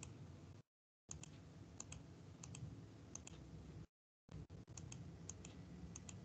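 Faint computer mouse clicks, mostly in quick pairs, every half second to a second, over a low hiss that drops out now and then.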